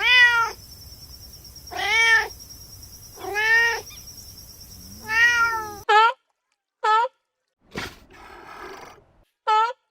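A domestic cat meowing repeatedly. There are seven meows, each rising then falling in pitch: four drawn-out ones, then, after an abrupt switch to a quieter recording, three short ones. A single sharp click falls between the later meows.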